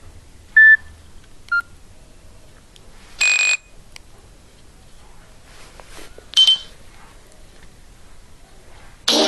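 Nokia 6124 classic mobile phone's speaker playing short electronic alert tones: four brief beeps and chirps spread over several seconds, then a ringtone's music starting right at the end.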